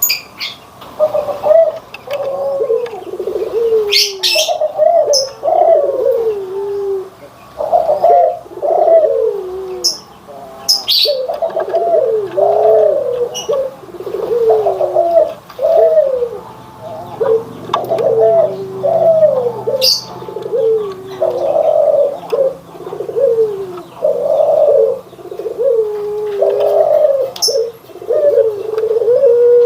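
Puter doves (domestic ringneck doves) cooing: a steady run of repeated falling coos, about one a second, with a few short sharp high sounds between them.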